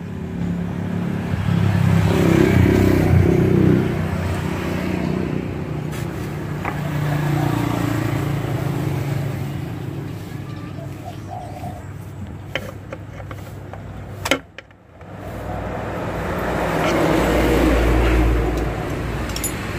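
Motor vehicle engine sound that swells and fades twice, loudest a couple of seconds in and again near the end, with a sharp click and a brief drop-out about fourteen seconds in.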